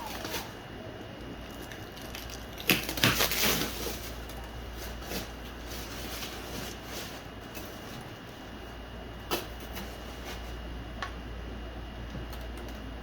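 Packing materials being handled while a boxed machine is unpacked: a short burst of rustling and sharp clicks about three seconds in, then a couple of single clicks later.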